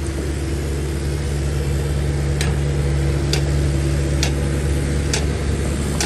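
A steady low mechanical hum of a motor running, with faint, evenly spaced clicks about once a second from about two seconds in.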